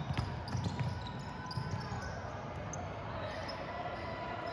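Basketball being dribbled on a hardwood gym floor. The bounces are quick and repeated, thickest in the first two seconds and then thinning, with short high squeaks scattered through.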